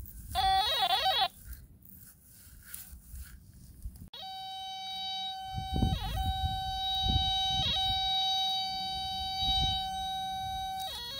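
Dr. Otek MT9s kids' metal detector in pinpoint mode sounding its electronic tone: a short warbling tone about half a second in, then from about four seconds in a steady tone that dips briefly in pitch a few times. The steady tone is the pinpoint signal that the coil is right over the centre of the metal target.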